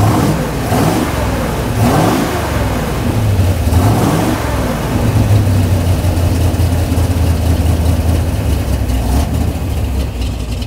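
Corvette Grand Sport race car's V8 running at idle, revved up and back down about three times in the first few seconds, then settling to a steady idle.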